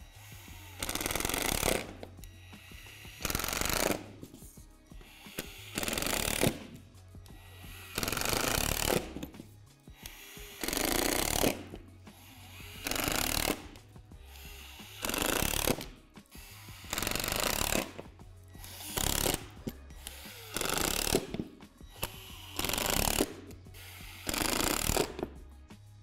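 A cordless driver running in short bursts, about a dozen, each roughly a second long and about two seconds apart, driving screws through the seam of the shed's plastic floor panels.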